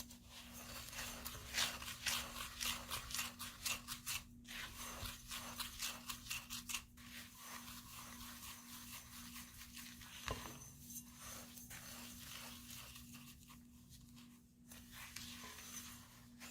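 Quick, repeated scraping and rubbing strokes of kitchen prep work, dense for the first several seconds and then slower and fainter, over a steady low hum.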